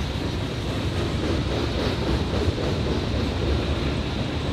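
Norfolk Southern mixed freight train rolling past, a steady run of wheel-on-rail noise from the passing cars.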